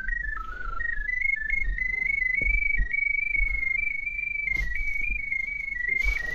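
Electronic tone from a RIDGID pipe locator tracking a drain camera's sonde. The tone is continuous and jumps up and down in small pitch steps, dipping near the start and highest around the middle. A couple of brief rustles come near the end.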